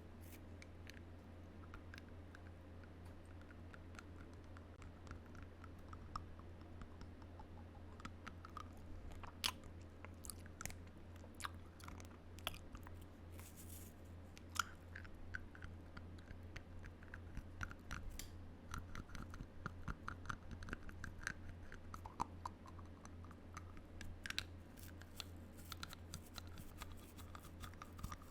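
Close-miked biting and chewing on a hard object: scattered small clicks and crunches, sparse at first and coming more often from about eight seconds in, over a steady low hum.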